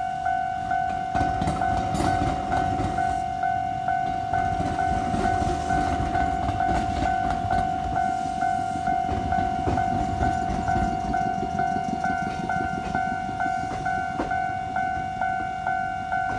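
Japanese railway level-crossing warning bell clanging steadily at about two strikes a second. Under it a train rumbles across from about a second in until near the end, with a few sharp wheel clacks.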